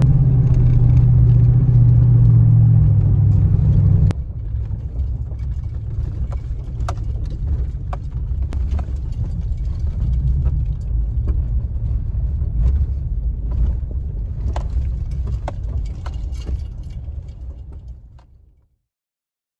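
Pickup truck driving, heard from inside the cab: a steady engine and road drone, which changes abruptly about four seconds in to a lower rumble with scattered crackles of tyres rolling slowly over gravel. It fades out near the end.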